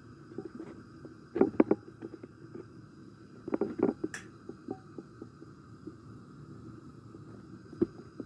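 Gas burner hissing steadily under a cast-iron frying pan of sunflower oil as it heats, with a few clusters of short sharp clicks and knocks, the loudest about a second and a half in and again around three and a half to four seconds.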